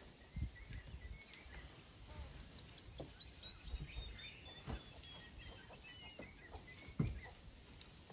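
A bird singing a long run of quick, evenly spaced high notes that slowly fall in pitch, over a low background rumble. A few soft thumps come through, the loudest near the end.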